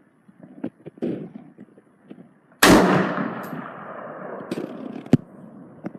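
A single loud gunshot about two and a half seconds in, its report echoing and fading over the next couple of seconds, with fainter sharp pops and clicks before it and another short crack near the end.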